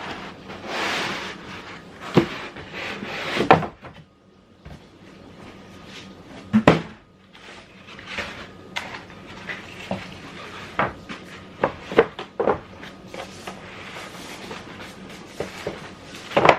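Cardboard box and packaging being handled while a small coffee maker is unpacked: rustling and scraping in the first few seconds, then a string of knocks and taps, with a sharp knock at the very end.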